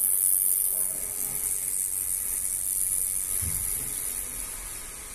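80K ultrasonic cavitation handpiece running with water on its face, giving a steady high-pitched hissing sizzle as the water is agitated and spattered; the strength of the spatter is used to test the head's output power.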